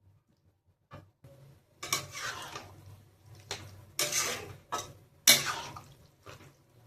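Metal kitchen utensils clinking and scraping against cookware in about five sharp strokes, the loudest near the end.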